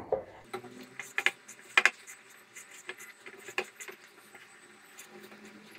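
Hands kneading soft gram-flour dough in a plastic bowl: faint squishing and patting with a few sharp taps, the loudest two close together between one and two seconds in.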